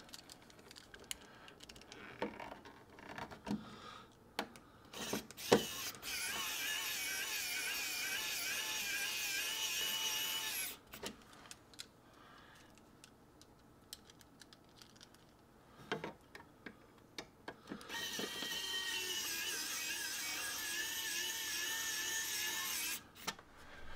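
Cordless electric screwdriver running twice, each run about four to five seconds, as it drives screws into the wall. Its whine wavers slightly in pitch under load. Small clicks and taps come between the runs.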